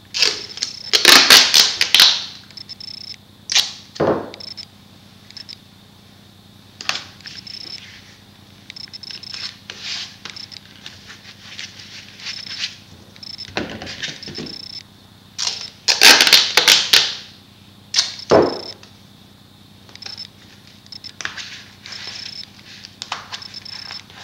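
Duct tape being pulled off the roll in two long, loud rips, about a second in and again around 16 s, with shorter rips and crinkling in between as it is wrapped around and pressed onto a foam pool-noodle end.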